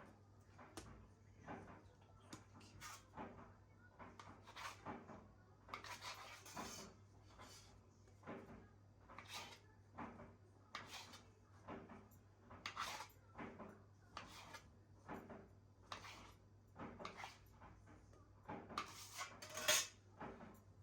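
Quiet, irregular handling sounds: soft rubs, scrapes and light taps, about one or two a second, with a louder cluster near the end.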